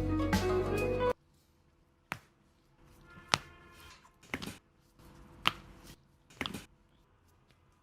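Background music cuts off about a second in. Then come sharp clicks from the chiropractic treatment, about one a second, a few of them doubled.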